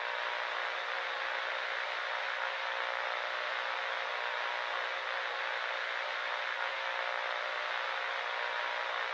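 Steady static hiss, even and unchanging, with a faint steady hum running under it.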